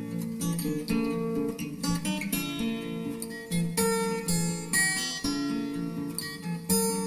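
Background music: acoustic guitar strummed and picked, with held chords.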